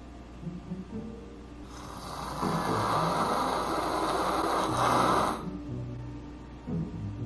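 A man snoring loudly on purpose, a fake, exaggerated snore. Low snoring sounds lead into one long, loud, noisy snore from about two seconds in to just past five seconds, and low snores follow it.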